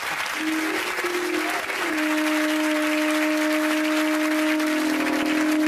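Telescopic alpine horn blown in long notes. A short note starts about half a second in and wobbles, then a steady low note is held from about two seconds in, with a second, slightly lower tone joining near the end. Studio audience applause runs underneath and dies away near the end.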